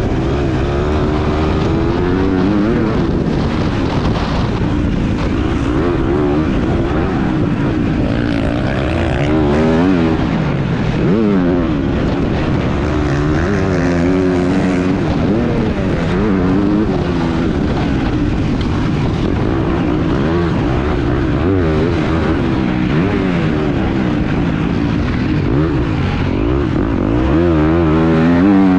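Husqvarna motocross bike's single-cylinder engine heard on board, revving up and falling back over and over through the gears as it is ridden hard round a dirt track, a little louder near the end.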